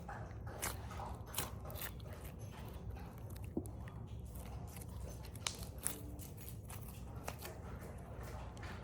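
Slime being squished and stretched by hand, giving off faint, irregular little clicks and pops.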